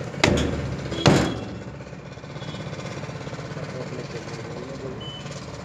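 Two sharp metal clanks about a second apart, the second ringing briefly, from tool work on a trailer wheel hub as its large axle nut is fitted and tightened. An engine hums steadily underneath.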